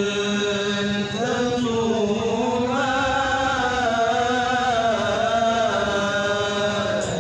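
A man's voice chanting Qur'an recitation (tilawah) into a microphone. It holds long, wavering melodic notes, with a short break and a rising re-entry about a second in.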